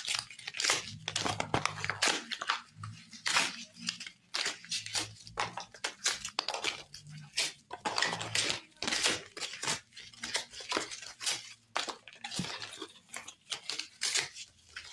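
Crayola cardboard boxes and paper packaging being torn apart and crumpled by hand: a quick, irregular run of ripping and crinkling.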